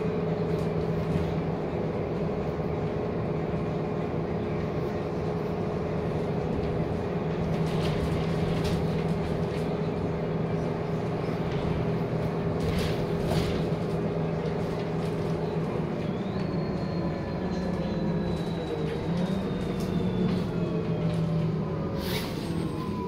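Interior of a moving city bus: a steady drive hum and road rumble with a few brief rattles. In the last several seconds a whine slowly falls in pitch.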